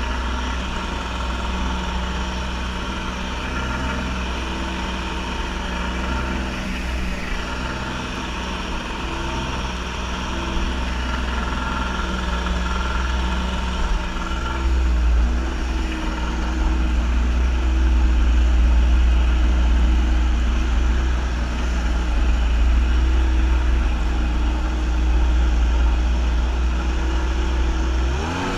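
Kawasaki JS550 stand-up jet ski's two-stroke twin engine running steadily underway. It gets louder about halfway through.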